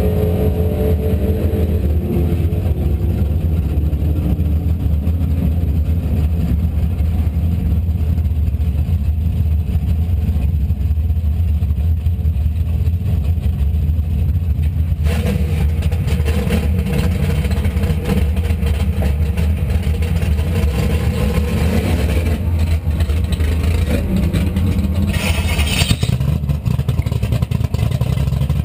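Car engine idling steadily, heard from beneath the car; about halfway through the sound turns rougher and brighter, and near the end a high hiss comes in for about a second.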